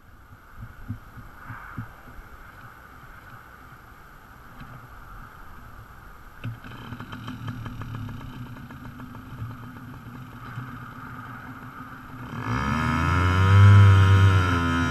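Yamaha PW50's small two-stroke single-cylinder engine running quietly, then revved hard about twelve seconds in, its pitch rising and falling as the rear wheel spins in loose dirt.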